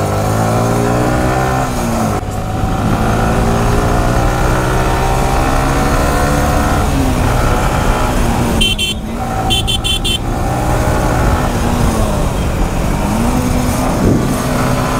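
Sport motorcycle engine running under way, its pitch rising and falling with the throttle over road and wind noise. A little past halfway a horn sounds: one short honk, then three quick toots.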